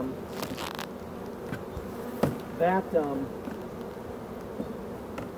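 Honeybees buzzing in a steady hum around an opened hive, with a few light knocks.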